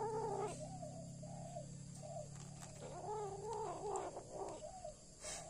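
White kitten growling low and wavering over the rat it is eating, in several stretches with a short break about two seconds in: a food-guarding growl.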